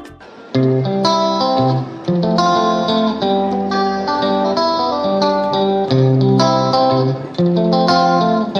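Background music led by a plucked guitar, playing a melody of held notes over a bass line; it starts after a brief drop about half a second in.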